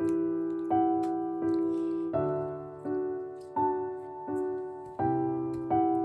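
Background piano music: gentle chords struck at an even pace, about one every 0.7 seconds, each fading before the next.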